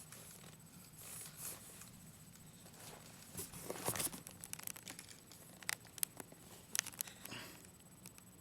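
Scattered light taps and pats from a baby's hands slapping and grabbing at furniture while pulling up to stand, clustered in the middle of the stretch.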